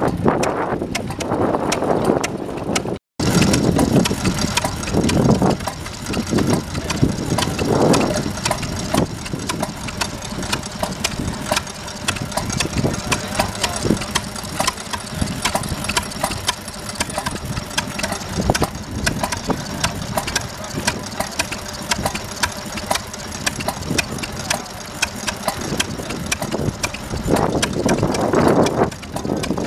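Vintage stationary engines running, with a dense run of sharp ticks. The sound cuts out completely for a moment about three seconds in.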